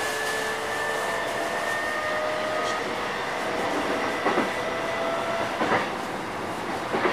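JR East E233 series 8000 electric train running under power: the traction motors' inverter whine sits in a few steady, slowly rising tones over the rolling noise of the wheels. About four seconds in, the wheels begin clacking over rail joints, a pair of knocks about every second and a half, while the whine fades out.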